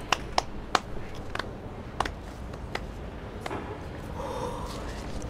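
Scattered sharp, light clicks and taps over quiet room tone, with a short breathy sound about four seconds in.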